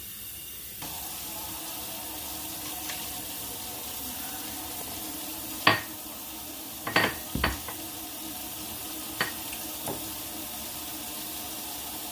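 Water running steadily from a tap into a sink, with a few short clatters of hard objects knocking in it, the loudest about halfway through.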